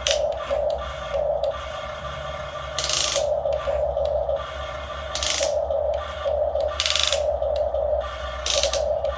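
Radio-controlled model excavator's motors and gears whirring in repeated pulses as it works, with four short bursts of hissing scrape.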